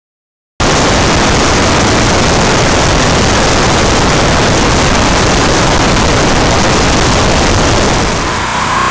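Loud, steady rush of airflow and engine noise from a light aerobatic aircraft in flight, picked up by an exterior camera. It cuts in suddenly after a brief silence and eases slightly near the end as music begins.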